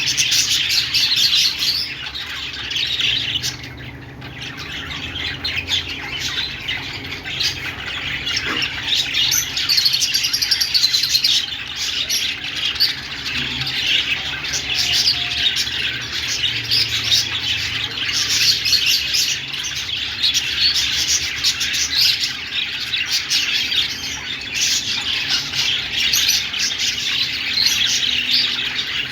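Budgerigars chirping and warbling in a dense, continuous chatter, with a brief lull about four seconds in.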